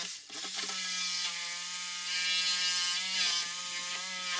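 Electric reciprocating saw running, its blade cutting into a wooden block between the wall studs, with a steady motor whine. It cuts out for a moment just after the start, then runs on without a break.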